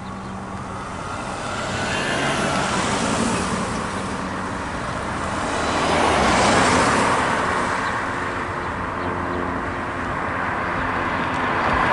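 Ford Transit ambulance driving past, its engine and tyre noise swelling and fading; loudest about six to seven seconds in as it passes.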